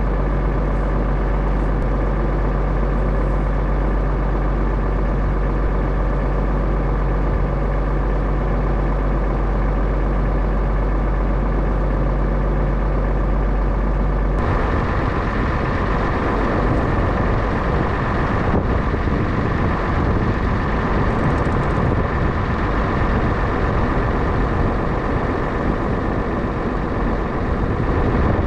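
Tractor engine running steadily with a deep, even drone. About halfway through the sound changes abruptly, becoming rougher and noisier.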